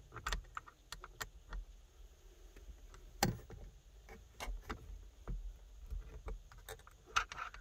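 Faint scattered clicks and taps of fingers and a small hex key turning a screw on a metal radar-detector mirror-mount bracket, with one sharper knock about three seconds in.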